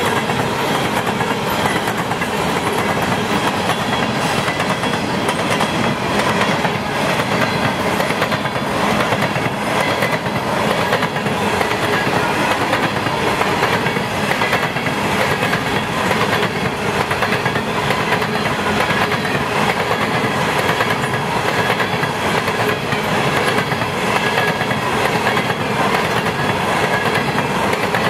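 Empty coal hopper cars of a unit freight train rolling past steadily, their wheels running on the rails.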